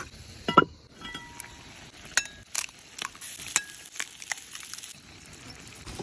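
Cooking utensil clinking and tapping against cookware: a string of irregular light taps, some with a brief ring, the loudest about half a second in.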